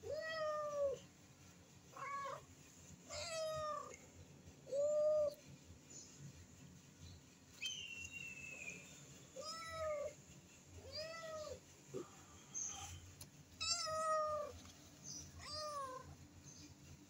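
Young tabby cat meowing over and over: about eight short, high-pitched, arching meows, with a pause of a few seconds midway.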